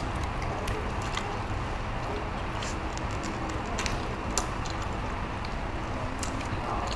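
Steady rumbling background noise with scattered faint clicks and taps.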